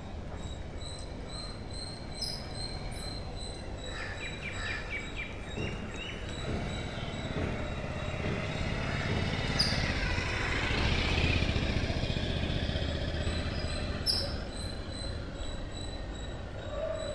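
Background ambience: a low rumble that builds up through the middle and then fades back, with a few short high chirps scattered through it.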